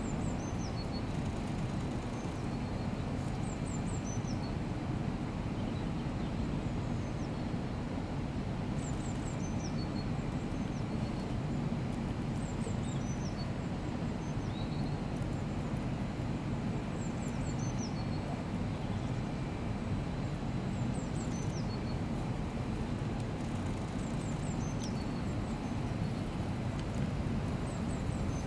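Steady low drone of brewery plant noise. Over it, a small songbird repeats a short high phrase of falling notes every few seconds.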